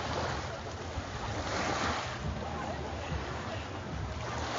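Black Sea surf washing ashore, with a wave swelling about a second and a half in and another near the end, and wind rumbling on the microphone.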